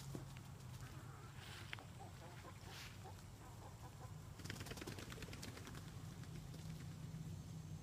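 A flock of chickens with wings flapping as they run, and a few faint clucks.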